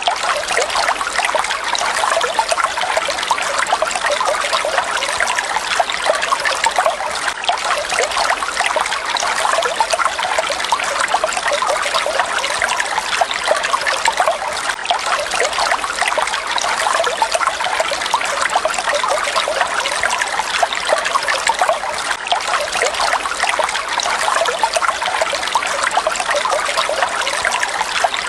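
Water falling and splashing steadily: a dense, even patter of small splashes with little deep rumble.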